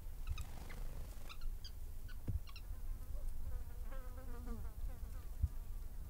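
Bush ambience: short, sharp bird chirps in the first half and an insect buzzing past with a wavering pitch about halfway through, over a low steady rumble.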